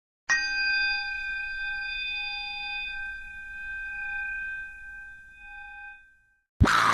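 A bell struck once, ringing out with a slowly beating tone and fading away over about six seconds. Just before the end a loud, dense sound starts abruptly.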